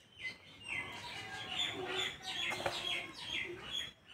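Birds chirping: a busy run of short, falling chirps that stops just before the end.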